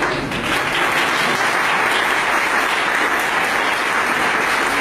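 Audience applauding, a steady clapping of many hands.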